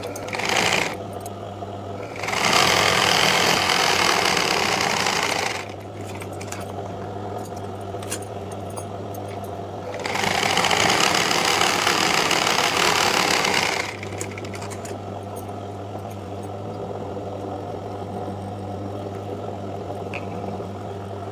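Mona sewing machine stitching in short runs: a brief burst right at the start, then two runs of about three to four seconds each, the second beginning about ten seconds in. A steady low hum sits underneath throughout.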